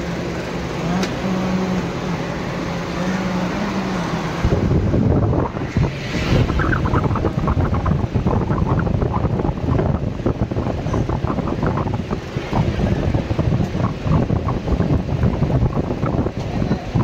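A steady machine hum with a low tone for about four seconds, then wind buffeting the microphone takes over, louder and rough with crackles.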